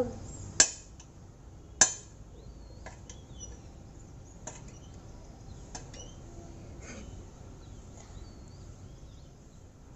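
Sharp taps or knocks, two louder ones in the first two seconds, then fainter ones about every second, while handling kinetic sand, with faint bird chirps in the background.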